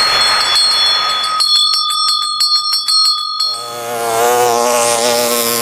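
Cartoon sound effects: a bright, bell-like chime with rapid ticking about five times a second, then a sustained wavering tone.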